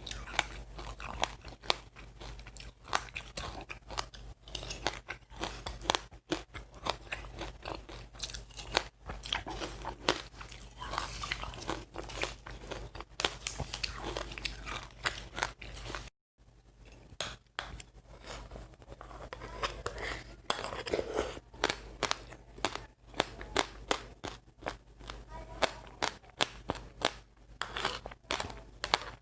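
Close-up chewing of crunchy seeds: a rapid stream of sharp crackling crunches, several a second, with wet mouth sounds between them. The sound cuts out completely for a split second about halfway through.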